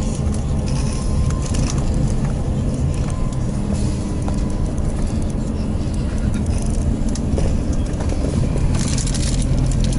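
City bus in motion heard from inside the passenger cabin: a steady engine drone with road and tyre noise, and light clicks now and then.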